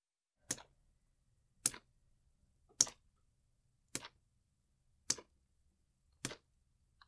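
Water dripping from a leak in the ceiling: six single sharp drops at an even pace of about one a second.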